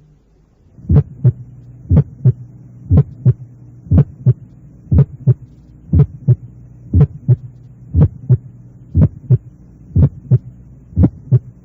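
Heart sounds heard through a stethoscope: a steady rhythm of about one beat a second, each beat a pair of short thuds (first and second heart sounds), over a steady low hum.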